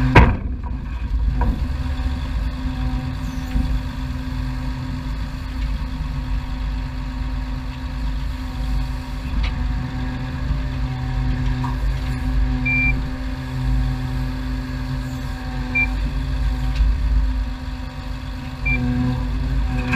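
Diesel engine of an eight-wheel grab lorry running steadily while its hydraulic grab crane is worked from the control levers, the low hum rising and falling. There is a sharp loud clunk right at the start, and a few short single high beeps later on.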